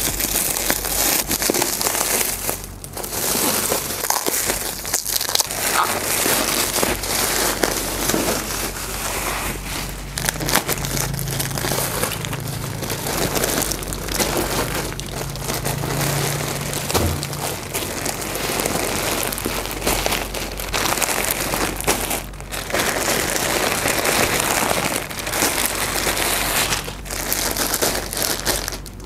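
Plastic crinkling and rustling as a parcel is unwrapped by hand: clear stretch wrap is torn off and a black plastic mailer bag pulled open, then plastic-wrapped packs of yarn are handled. The crackling goes on almost without a break, with a few short pauses.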